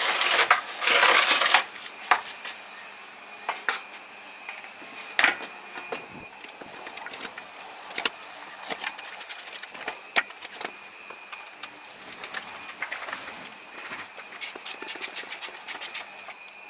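Plastic underbody shield being handled and refitted from underneath a car. A loud rustle at the start, then scattered knocks and clicks, with a quick run of clicks near the end.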